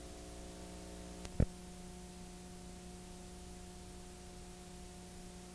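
Steady hiss and electrical hum from video-tape playback past the end of the recording, with a single sharp click about a second and a half in, where some of the hum tones drop out.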